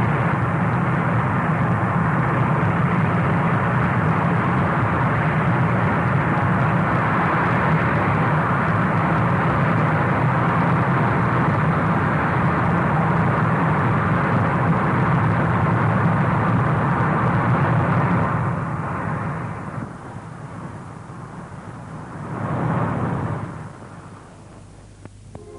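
V-2 rocket's liquid-oxygen and alcohol engine firing on a static test stand: a loud, steady rushing noise that dies away about 18 seconds in, swells briefly once more, then fades out.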